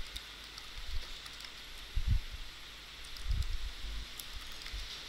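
Computer keyboard typing: faint, scattered key clicks over a steady hiss, with a few low thuds, the strongest about two seconds in and about three and a half seconds in.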